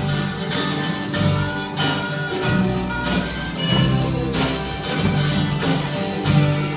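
Live band playing a song led by acoustic guitars, with a steady beat.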